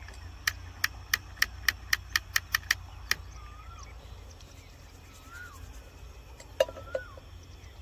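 A run of about ten sharp clicks, coming closer together, then one more click with a short buzz near the end. Faint short whistles that rise and fall come a few times, over a steady low rumble.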